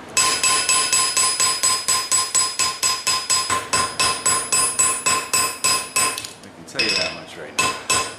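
Hand hammer striking a glowing-hot forge-welded cable-damascus blade on a Peter Wright anvil, about five blows a second, each with a bright, lingering ring from the anvil. The blows stop briefly about six seconds in, then start again.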